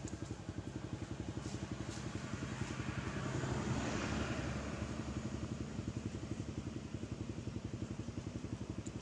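An engine running with a rapid, even low pulse, growing louder and hissier for a couple of seconds around the middle before settling back.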